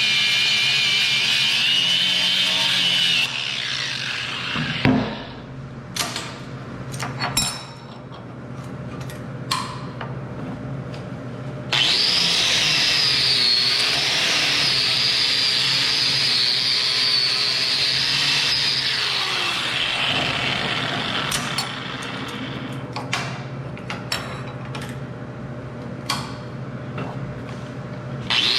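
A power tool running in two long runs: it stops about three seconds in, starts again around twelve seconds and stops near twenty. Between the runs come sharp knocks and clanks.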